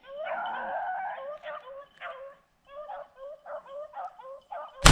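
Pack of beagles yipping and baying in quick, repeated cries as they run a rabbit's trail. Near the end a single loud gunshot cracks over the hounds.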